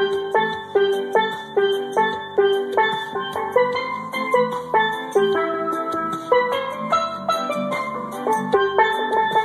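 Steel pan (steel drum) playing a melody of ringing struck notes. It sounds over a steady beat with regular high ticks and a low bass line.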